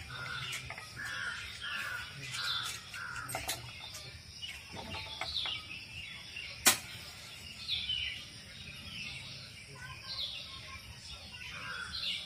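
Crows cawing, a quick run of short harsh caws in the first three seconds and again near the end, with other birds chirping. A single sharp click about seven seconds in is the loudest sound.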